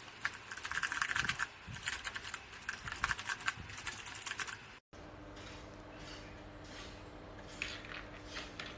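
Rapid typing on a mechanical keyboard fitted with PBT XDA-profile keycaps: dense, quick key clacks for about four and a half seconds. The sound then cuts off and gives way to a quieter low steady hum with a few faint clicks.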